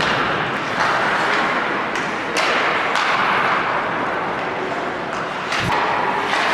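Live ice hockey play: a steady hiss of skate blades on the ice, broken a few times by sharp clacks of sticks and puck, one of them with a dull thud.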